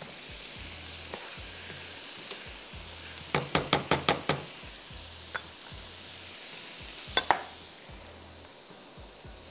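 Food sizzling in a pot on the stove. About three seconds in comes a quick run of about eight clicks from a utensil against the pot, and about seven seconds in, two sharper knocks.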